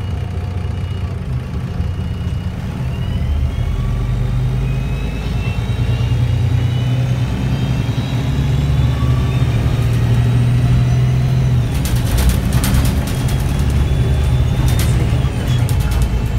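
City bus drivetrain heard from inside the passenger cabin as the bus pulls away and accelerates: a steady low engine rumble with a thin whine that climbs, drops back and climbs again through the gears. About twelve seconds in, and again near the end, a burst of sharp rattles and clatters cuts in.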